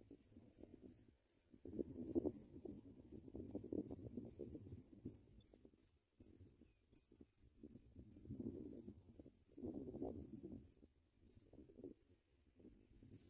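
A cricket chirping in an even rhythm, about three high chirps a second, which stops near the end. Under it there is an on-and-off low rustling and crackling.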